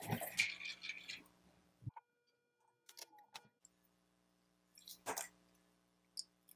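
Clicks and light rattling as a disassembled cordless-tool lithium-ion battery pack and small metal tools are handled on a workbench. The handling is busiest in the first two seconds, with a few sharper clicks about five seconds in and a small clink near the end.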